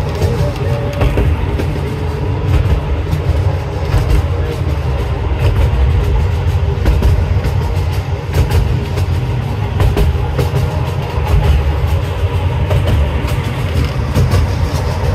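Miniature zoo train rolling along its track, heard from aboard an open passenger car: a steady low rumble with frequent light clicks from the wheels on the rails.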